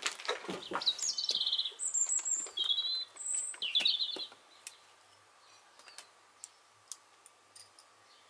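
A small songbird singing in short, high trilled phrases, several of them falling in pitch, through the first half; a few light knocks and rustles at the very start.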